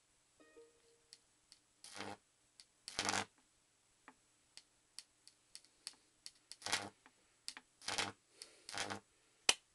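High-voltage arc from an unballasted microwave oven transformer, snapping and crackling in irregular sharp cracks, with several longer buzzing bursts of about half a second and a loud crack near the end. A faint steady hum from the transformer runs underneath.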